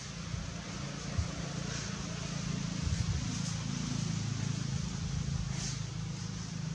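A steady low engine hum, like a vehicle running, over constant outdoor background noise, with a few faint brief sounds on top.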